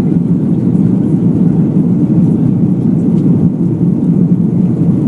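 Airbus A330 taking off, heard from inside the cabin: a loud, steady low rumble of jet engines and airflow.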